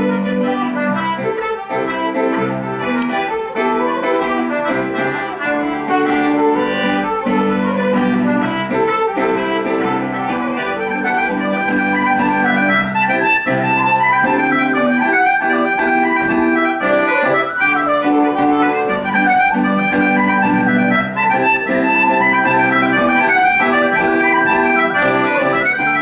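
Small Irish band playing a tune on concertina and tin whistle, the notes sounding without a break.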